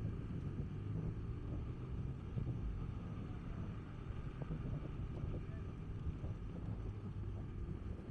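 Street ambience: a low, steady hum of traffic engines with wind rumbling on the microphone.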